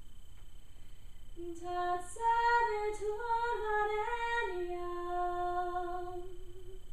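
A woman's voice singing a devotional mantra melody unaccompanied: a short phrase stepping up and down in pitch, then one long held note.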